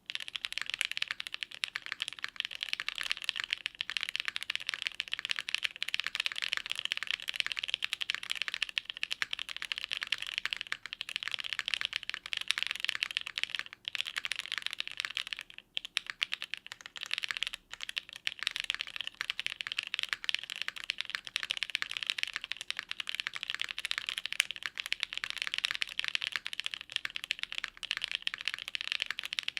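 Continuous fast typing on a plateless, gasket O-ring mounted HEX.3Cv2 mechanical keyboard with linear Gateron Cream Soda switches and GMK keycaps, the keystrokes running together into a dense clatter, with brief pauses in the middle.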